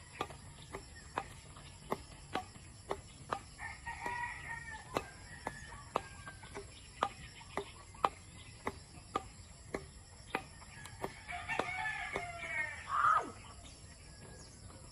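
A rooster crowing twice: a fainter crow about four seconds in and a louder one near the end that falls away in pitch at its close. Under it runs a steady series of sharp clicks, about two a second.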